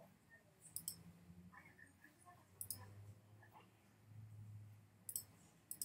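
Faint computer mouse clicks, about four of them spaced a second or two apart, as menus are opened and closed.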